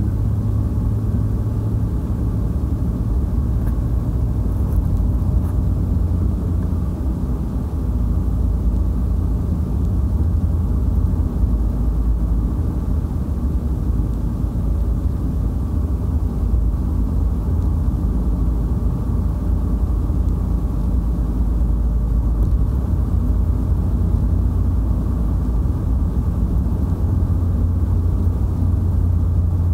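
Steady low rumble of engine and tyre noise heard from inside a car's cabin while driving at an even speed on a paved road.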